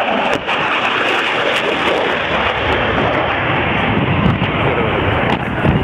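Jet noise from a Panavia Tornado's twin turbofan engines in flight: a steady rushing noise.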